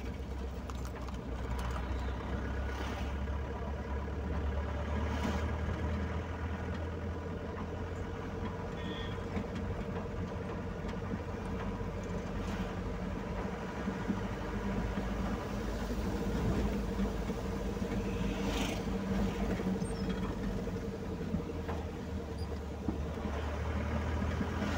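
Car engine and road noise heard from inside the cabin while driving, a steady hum with a few light clicks.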